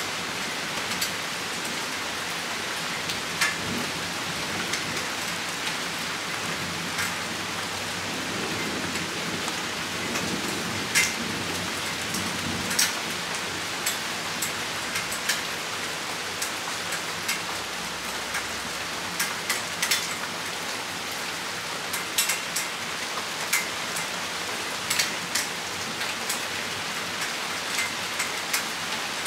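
Steady rain shower: an even hiss of rain, with sharp ticks of drops striking a nearby surface every second or so. A faint low rumble of thunder swells about a third of the way in.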